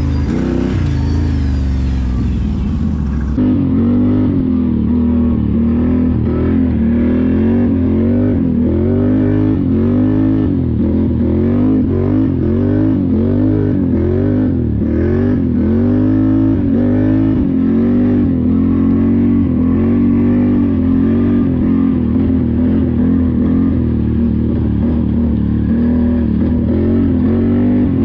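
ATV V-twin engine being revved up and down over and over, its pitch rising and falling about once a second. The sound changes abruptly about three seconds in, as if a different stretch of running begins.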